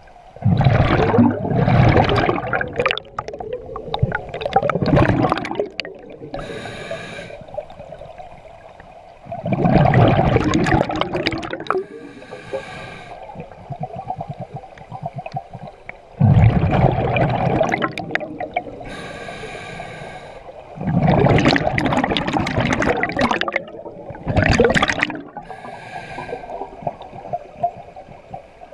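Scuba diver breathing through an open-circuit regulator underwater: about five long bursts of exhaled bubbles rushing past, each followed by a shorter, fainter hiss of inhalation through the demand valve.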